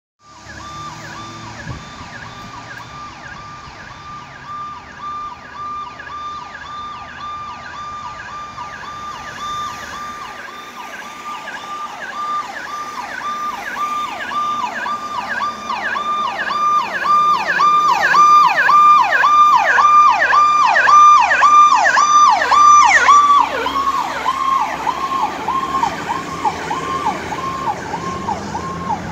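An ambulance siren in a fast, repeating sweeping pattern, running on an emergency response call. It grows steadily louder as the ambulance approaches, then drops in pitch and loudness as it passes, about three-quarters of the way through, and carries on fainter as it moves away.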